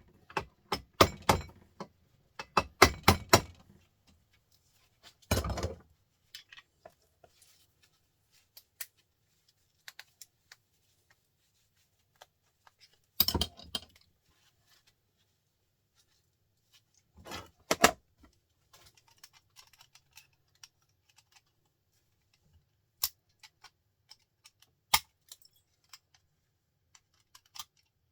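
Hand tools clinking and knocking against the metal casing of a small printer motor as it is pried apart: short bursts of clicks and clanks with quiet gaps between, and a couple of single sharp ticks near the end.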